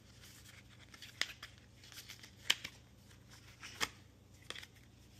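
Hands handling a headphone carrying case and its paper packaging: a few short, sharp clicks and scrapes about a second apart, the loudest around two and a half seconds in.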